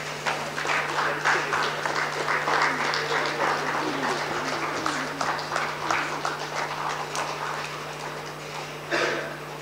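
Audience applauding: many hands clapping at once, thinning out near the end.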